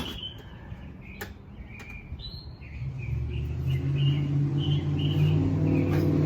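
Birds chirping, with a sharp click right at the start and a second click about a second later. From about three seconds in, a vehicle engine's low rumble builds and grows louder.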